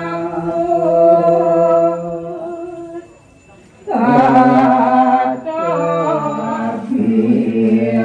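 Balinese Hindu prayer chant sung in long, held notes. The chanting pauses briefly about three seconds in, then resumes fuller, with more voices.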